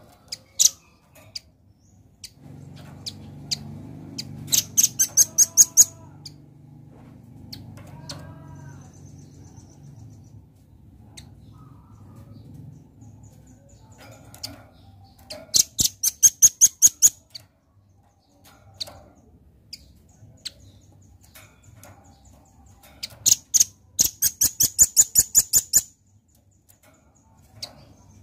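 Velvet-fronted nuthatch calling: three bursts of rapid, high, sharp chip notes, each lasting a second or two. A low rumble runs underneath during the first half.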